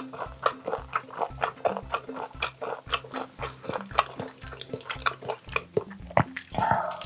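Close-up mouth sounds of chewing boiled baby octopus with roe: rapid wet clicks and smacks, several a second, with a louder sharp click about six seconds in.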